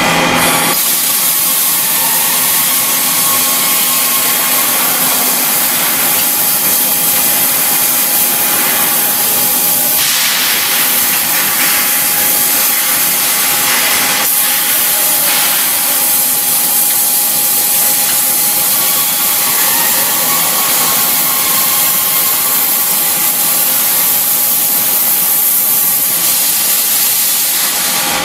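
Oxy-fuel cutting torch on a portable H-beam cutting machine, its cutting-oxygen jet hissing steadily as it burns through a steel beam. The hiss comes on about half a second in.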